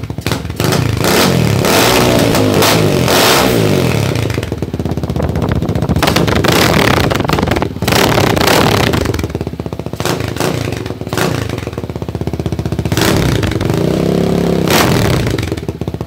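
Motorstar Z200S motorcycle engine revved repeatedly through its stock 51 mm elbow exhaust pipe with the silencer removed, open and loud. The pitch climbs and falls with each rev.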